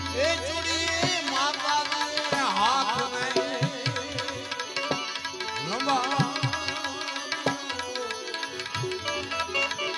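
Live santvani devotional music: a harmonium with a steady hand-drum beat under a lead melody full of sliding, bending ornaments.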